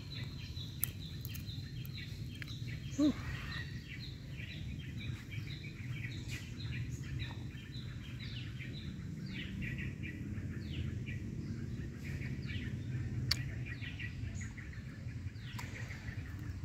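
Small birds chirping over a steady low background rumble: a fast, regular run of short chirps at first, then scattered falling chirps. A brief louder, low-pitched sound comes about three seconds in.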